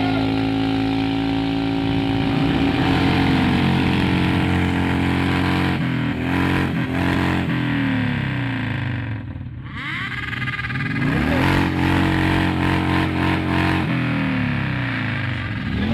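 Motorcycle engines revved hard and held at high revs for a few seconds at a time, dropping back and climbing again several times, with two engines at different pitches overlapping near the middle.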